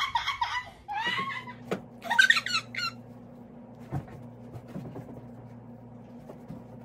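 A woman's high-pitched squeals and giggles for about three seconds, with no words, then the steady low hum of a handheld percussion massage gun running.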